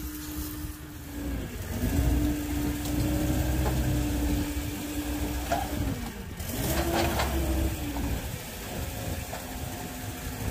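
Telehandler's diesel engine running, its pitch rising briefly and settling again about seven seconds in as the machine works, with a short burst of crackling noise at the same moment.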